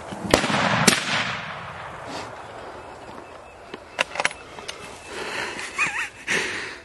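Scoped hunting rifle with a suppressor firing: two sharp cracks about half a second apart, then a few fainter clicks a few seconds later.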